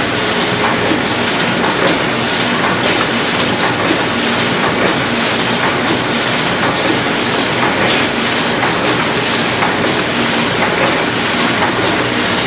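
Oliver 66 semi-automatic offset printing press running, a steady mechanical clatter with a fast rattle of its moving parts.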